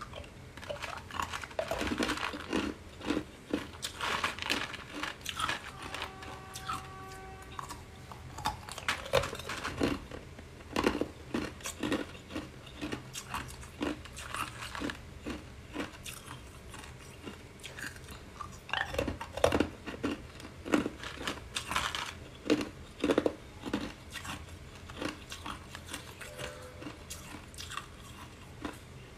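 Clear ice cubes being bitten and chewed: a long run of irregular, sharp crunches and cracks as the ice breaks between the teeth.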